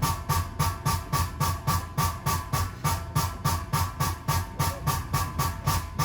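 Air system of a JR West 225 series 0-subseries electric train, heard inside the car, giving out rapid repeated bursts of air, about four a second, each with a faint tone. This abnormal sound at departure is what the uploader takes for a possible compressor fault.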